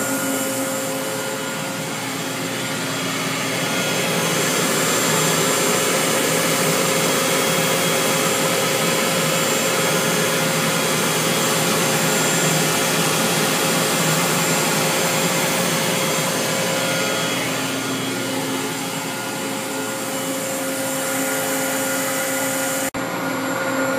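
Cincinnati Milacron Avenger 250MT CNC lathe's spindle and 10-inch hydraulic chuck spinning unloaded at 1,000 RPM: a steady whir with a few steady hum tones, briefly cutting out about a second before the end. The spindle is extremely quiet, a sign of a lathe in really nice shape.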